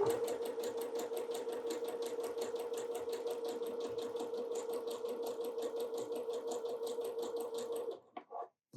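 Electric sewing machine stitching fabric pieces together at a steady speed: a motor hum with quick, even needle ticking, which stops about eight seconds in.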